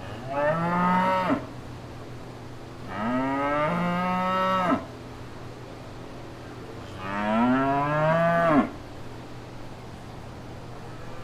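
Cattle mooing: three long moos, each rising in pitch and then dropping sharply as it ends, about a second, two seconds and one and a half seconds long, with a steady low hum between them.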